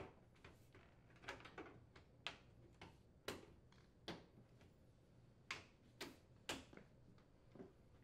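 Faint, irregular clicks and taps of a stainless dishwasher outer door panel being aligned on the inner door and slid up into place.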